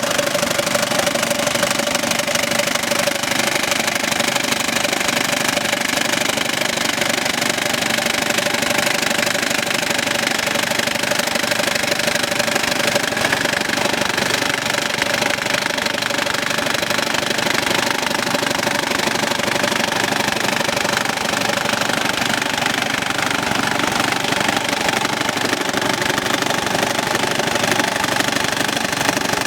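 DC720 multi-purpose farm machine's small engine running steadily with its A-shaped grass-cutting blade attachment, a steady whine riding over the engine noise, clearer in the first half.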